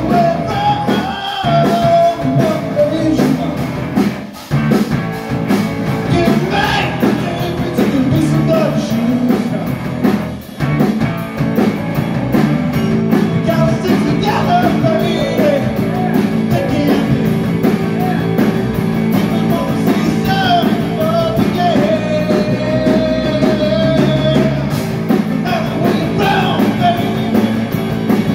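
Live rock band playing loudly: electric guitar through an amp and a drum kit, with a man singing into the microphone in stretches.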